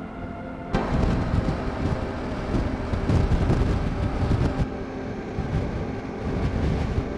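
Yamaha Ténéré 700's parallel-twin engine running at road speed under heavy wind noise on the microphone. It opens with a brief steady hum that cuts off abruptly less than a second in.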